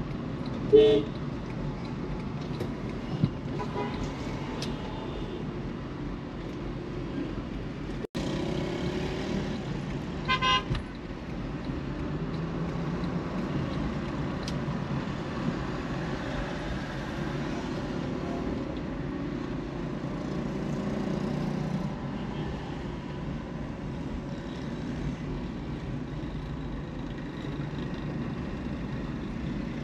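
Steady road and traffic noise from a car driving on city streets. A short car-horn toot comes about a second in, and two quick toots follow around ten seconds in.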